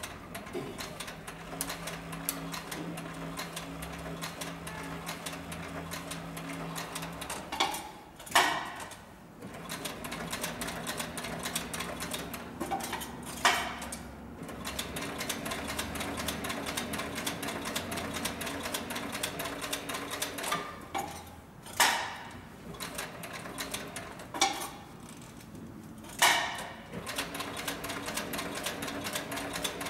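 Cowboy CB4500 heavy-duty leather stitcher, driven by a DC servo motor through a gear reducer, sewing two layers of thin (about 4 oz) upholstery leather: a rapid stitching clatter over a steady motor hum. Four short, louder sounds break into it at intervals.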